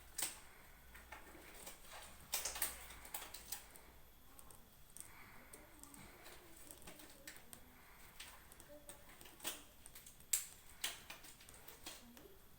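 Scattered light clicks and knocks of small objects being handled and set down, the loudest about ten seconds in.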